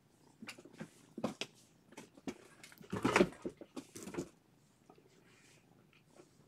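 A domestic cat purring close by, mixed with irregular soft scuffing and rustling, the loudest about three seconds in.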